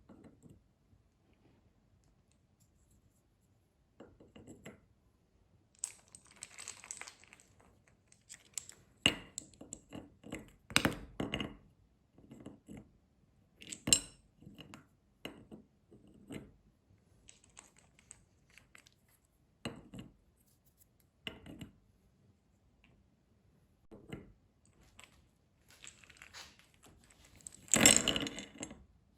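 Small hard objects being handled: scattered clicks and clinks, with a few bursts of rubbing or rustling, the loudest near the end.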